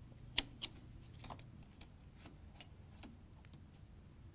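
A few light metal clicks from an open-end wrench working the compression nut on a refrigerator water inlet valve, the sharpest about half a second in, followed by fainter scattered ticks.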